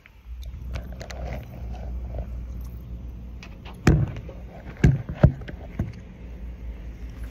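A steady low rumble with a few sharp knocks or thumps, one about four seconds in and two close together about a second later.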